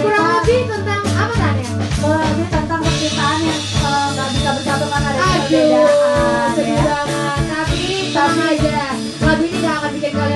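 A woman singing into a handheld microphone over backing music with drums, her voice gliding through sung phrases.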